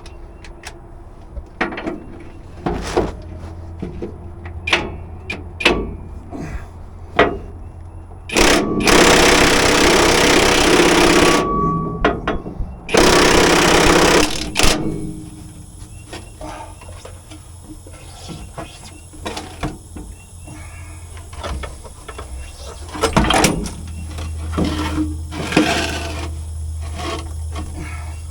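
An impact wrench runs in two bursts, about three seconds and then about a second and a half, working loose a stubborn fastener on a trailer's airbag suspension. Scattered knocks and clanks of tools and metal parts come before and after.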